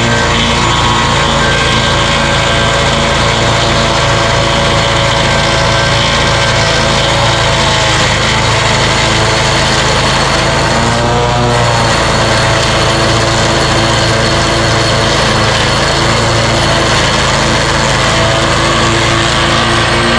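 Scag Tiger Cat zero-turn mower running steadily with its deck blades grinding a stump, spraying wood debris. The engine note dips and recovers once about halfway through.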